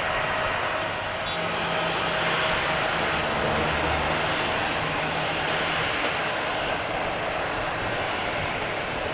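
Airbus A320-214's CFM56 turbofan engines running at taxi power as the airliner rolls along the taxiway: a steady jet rush with a faint whine.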